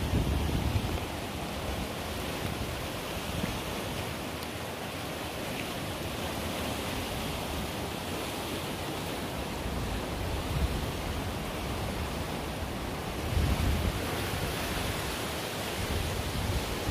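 Steady rush of a swollen, muddy river, with wind buffeting the microphone in low gusts, strongest near the start and about thirteen seconds in.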